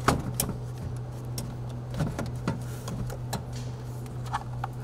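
Light, irregular clicks and knocks of a molded intake airbox, hoses and cables being handled and seated in an engine bay, over a steady low hum.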